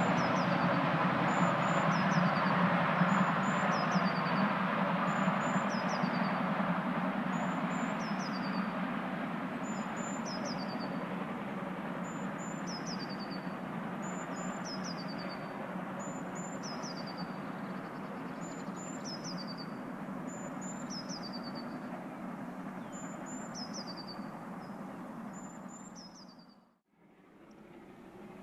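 Steam locomotive working a train out of sight beyond the trees, heard as a steady rushing exhaust and running noise that slowly fades as it draws away, then cuts out shortly before the end. A high, falling chirp repeats about every second and a half over it.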